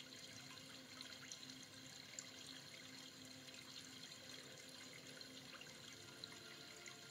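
Near silence: a faint steady trickling hiss scattered with light ticks.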